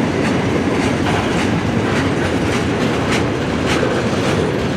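Long CN freight train's cars rolling past at close range: a steady loud rumble with the wheels clacking at irregular intervals of about half a second.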